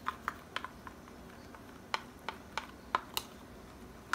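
Metal spoon clinking against a small clear container while stirring cornstarch into water to dissolve it, a string of light irregular clicks, two or three a second.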